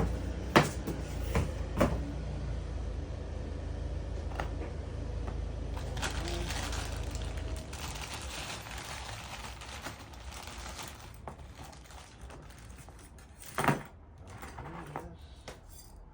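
Heater kit parts and packaging being handled: a few sharp clicks and knocks, a stretch of rustling, and one louder thump near the end, over a low rumble that fades out about halfway through.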